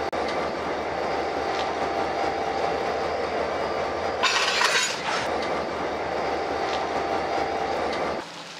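Freight cars rolling past close by: a steady rumble and clatter of steel wheels on the rails. About four seconds in there is a brief, louder, high-pitched screech. The sound cuts off suddenly near the end.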